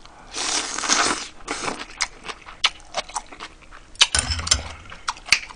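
A man eating ramen close to the microphone: a loud mouthful lasting about a second near the start, then chewing with many short smacks and clicks.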